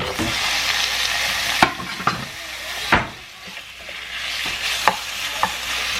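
Food sizzling as it fries in a pan, stirred with a utensil that knocks and scrapes against the pan about five times. The sizzle eases for a moment about three seconds in.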